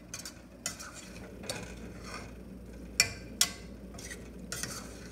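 A utensil stirring macaroni and cheese in a stainless steel saucepan, scraping and clinking against the pot. Two sharper clinks about three seconds in.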